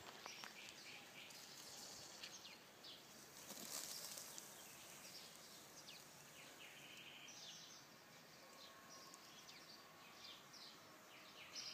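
Faint birdsong: many short chirps and twitters from small birds, repeating throughout over a low background hiss.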